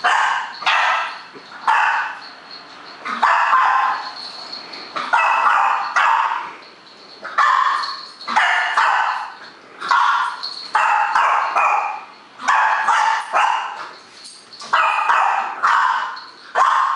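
Boston Terrier barking over and over, a loud bark roughly every second, at a cat-toy ball with a bell inside.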